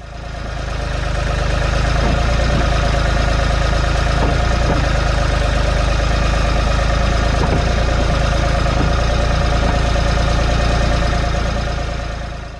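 Tractor engine running steadily at an even speed. It fades in over the first couple of seconds and fades out at the end.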